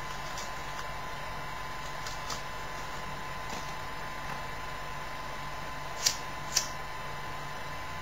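Steady hiss and hum of a low-quality webcam microphone, with a faint constant tone. Two short sharp clicks about half a second apart come about six seconds in.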